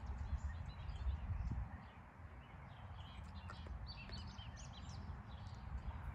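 Outdoor ambience: a low, uneven rumble under small birds chirping, with a run of quick chirps between about four and six seconds in.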